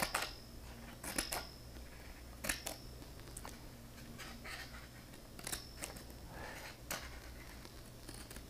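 Scissors snipping construction paper: a series of short, separate snips spaced roughly a second apart, as small fringe cuts are made along the edge of a paper shape.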